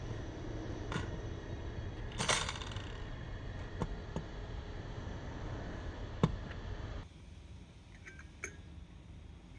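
Scattered small metallic clicks and clinks from a screwdriver working a screw and washers down onto the tine bar of a DIY thumb piano, one louder clink about two seconds in with a brief ring, over a steady low hum. After about seven seconds the hum drops away and a few softer clicks follow as pliers work the steel tines.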